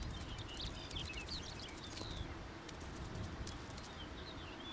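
Quiet tundra ambience: scattered short, high chirping calls, thickest in the first couple of seconds, over a low wind rumble, with light clicking and rustling in dry grass.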